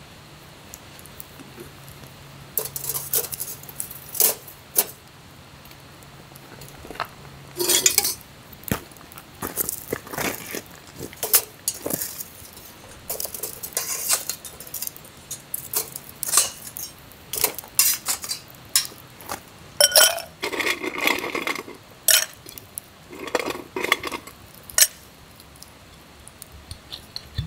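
Irregular sharp clinks and clatters of metal and glass camp cookware and utensils, with longer rattling clatters about 8, 20 and 23 seconds in.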